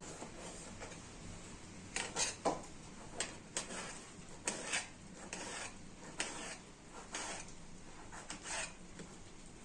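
Kitchen utensils scraping and rubbing against dishes in about ten irregular strokes, starting about two seconds in.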